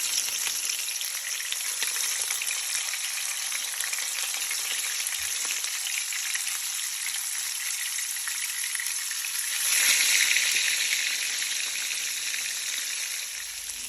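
Salmon frying in hot oil in a pan: a steady sizzle that swells louder about ten seconds in.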